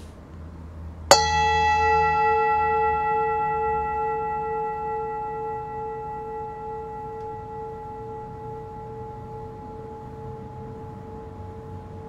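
A meditation bell is struck once about a second in and rings on with a long, slowly fading tone of several overtones. It is sounded as a focus for meditation: the listener follows the ringing tone as it dies away.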